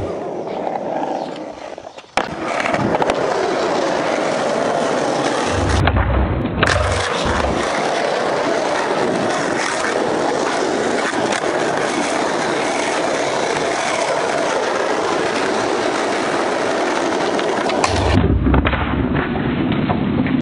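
Skateboard wheels rolling over rough asphalt, a steady gritty rumble that drops out briefly and comes back suddenly about two seconds in. Two low thuds are heard, one around six seconds in and one near the end.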